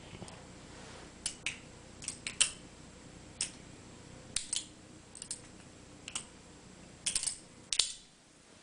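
Balisong (butterfly knife) being flipped: its handles and blade clack together in a string of sharp, irregular clicks, often two or three in quick succession. The clicks stop about eight seconds in.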